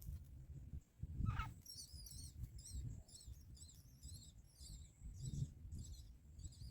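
Myna chicks cheeping in the nest: many short, high chirps in quick succession, starting about a second and a half in, after one brief falling call. A low rumble runs underneath.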